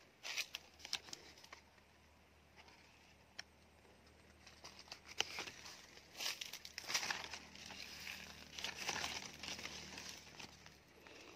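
Faint rustling and crackling of mango leaves and twigs as the branches are brushed past and handled. It comes in irregular bursts with a few sharp clicks, busiest from about six to ten seconds in.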